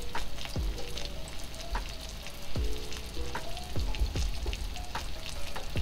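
A spoon stirring a cornstarch-and-water slurry in a small dish, clinking irregularly against its side about eight times, over a steady sizzling hiss.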